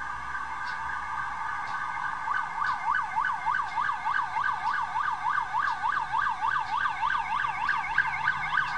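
Police car siren: a steady high tone at first, then about two seconds in a fast yelp that sweeps up and down about four times a second.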